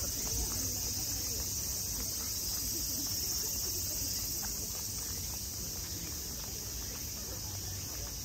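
A chorus of cicadas singing steadily in the trees, a continuous high, even shrill, over a low rumble.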